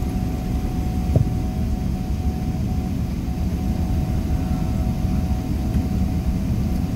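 Jet airliner rolling down the runway just after touchdown, heard from inside the cabin: a steady low rumble of engines and wheels, with a single sharp knock about a second in.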